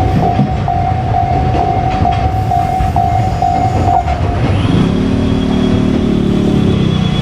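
Container freight train rumbling over the rails while a Japanese level-crossing warning bell rings in quick even strokes, about two a second. The bell stops about four seconds in, and a steady engine hum with a high whine sets in over the train noise.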